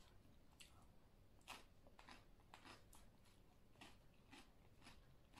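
Faint crunching as raw cucumber is bitten and chewed, a string of irregular crisp crunches about two a second.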